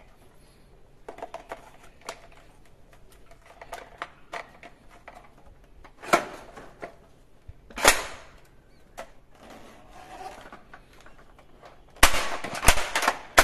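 Plastic toy blaster clicking and clacking as its parts and large drum magazine are handled and snapped on. There are light scattered clicks, two sharper clacks about six and eight seconds in, and a quick run of loud clacks near the end.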